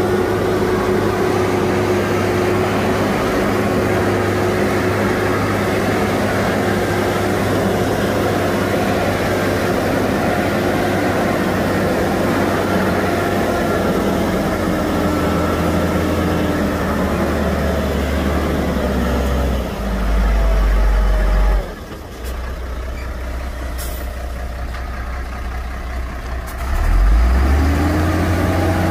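Heavy diesel engines of earth-moving machinery working under load. The engine pitch sags through the middle, a deep low rumble swells for a couple of seconds and then cuts off abruptly about two-thirds of the way in, and an engine revs back up near the end.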